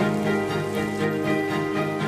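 Background music of sustained chords, changing right at the start, over a faint hiss of steady rain.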